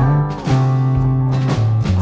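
Background music: guitar over a bass line with a steady drum beat.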